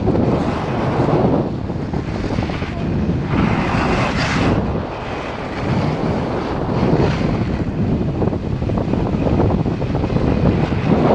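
Wind rushing over an action camera's microphone while skiing downhill at about 30 km/h, mixed with skis hissing and scraping on the snow. The noise swells and eases every couple of seconds through the turns.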